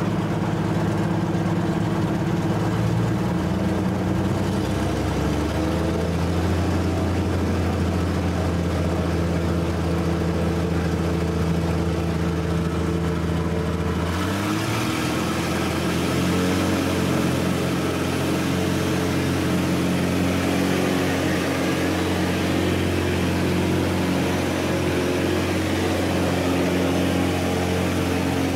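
Pitts biplane's piston engine and propeller, heard from inside the open cockpit, running steadily at low power on the ground. About halfway through, the engine note steps up and a rushing noise grows as power is added.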